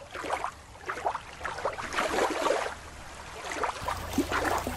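Water splashing and gurgling in short, irregular bursts.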